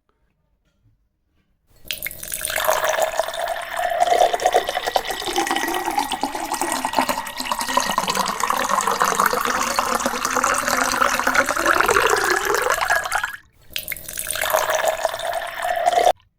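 Water running or pouring, in one long spell of about eleven seconds and then a short one of two to three seconds, after a brief stop.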